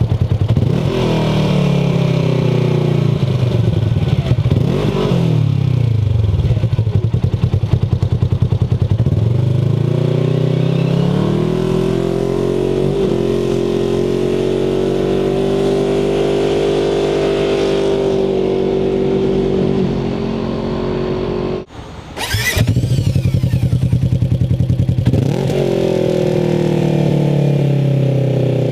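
Polaris RZR side-by-side engine running through an MBRP stainless steel replacement exhaust, revving up and down several times, then climbing to a steady high speed held for several seconds. About 22 s in the sound breaks off briefly, then the revving resumes.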